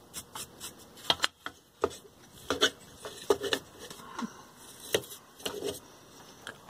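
A small bristle brush scrubbing and dabbing dust off a vintage tube radio's metal chassis and tube sockets: a series of short, irregular scratchy strikes.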